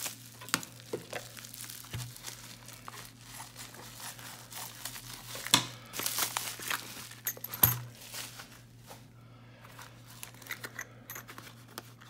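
Plastic bubble wrap crinkling and rustling as it is pulled off a boxed padlock by hand, with a few louder sharp crackles.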